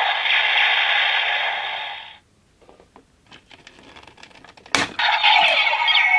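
DX Mirai Driver toy belt's electronic sound effect from its small speaker, fading out about two seconds in. Then small plastic clicks as the round watch part is handled and pulled off, a sharp snap, and a second short electronic sound from the toy about five seconds in.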